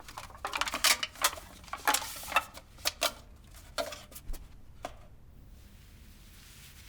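Irregular clatter of small hard objects knocking and clinking, some strikes ringing briefly, like dishes and cutlery being handled, for about five seconds before it dies away.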